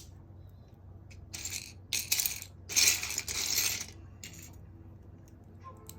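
Loose LEGO plastic pieces clattering and rattling in several short bursts, the longest just under a second, as if pieces are being stirred or sorted by hand.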